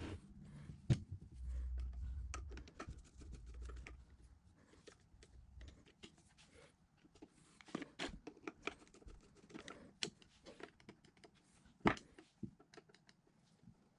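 Scattered small clicks and scrapes of a screwdriver and nut driver working the screws of a small electric motor's housing, with a low rumble of the motor being handled in the first half and a couple of sharper knocks, one near the start and one near the end.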